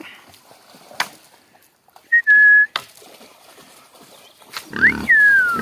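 Dog whining. A short steady high whine comes about two seconds in; from near the end a louder whine glides down and back up over a rough low grunting. A couple of sharp taps are heard before it.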